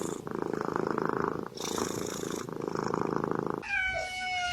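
A cat purring loudly and close up, a steady rattling buzz broken briefly as it draws breath. Near the end it gives way to a steady, slightly falling pitched tone.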